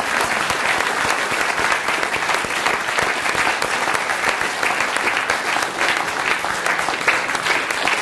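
Audience applauding: many people clapping steadily in a large hall.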